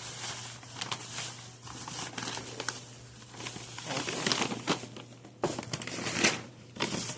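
Crinkling and rustling of packaging and bags being handled at a store checkout, with scattered short knocks and clicks, loudest around the middle and near the end.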